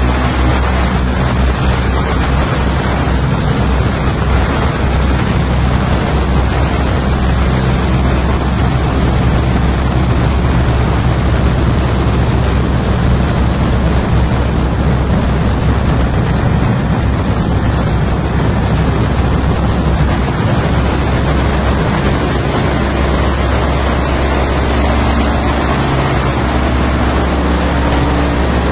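Live electronic noise music: a loud, dense, unbroken wall of noise over a heavy low drone, with a thin steady high tone on top. Near the end, a few low pitched tones start to show through.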